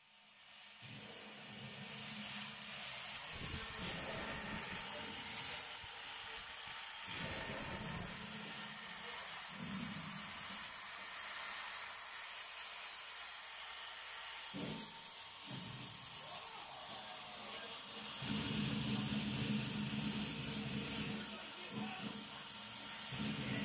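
Steady high hiss, with a low hum that comes and goes and is strongest near the end, and a few faint knocks.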